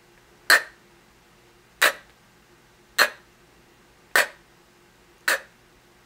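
A woman repeatedly saying the isolated consonant sound /k/, five times at about one per second: each a short, sharp puff of air with no voice behind it, the quiet unvoiced sound of the letter K.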